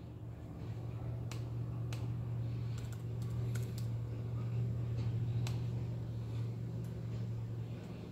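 Typing on a MacBook Air keyboard: scattered key clicks, with a quick run of keystrokes around the middle, over a steady low hum.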